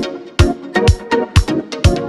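Upbeat background music with a steady beat: a deep kick drum about twice a second under repeating pitched chords.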